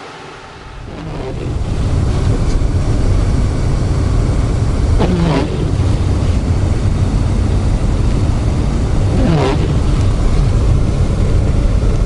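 Inside a car driving through heavy snow: a steady low engine and road rumble that comes up after about a second and a half, with a pitched sweep about every four seconds as the windshield wipers pass over the glass.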